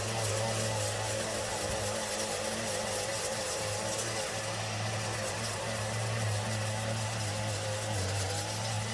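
Shoulder-slung petrol brush cutter running steadily while cutting grass. Its engine note dips briefly a few times and drops a little lower near the end.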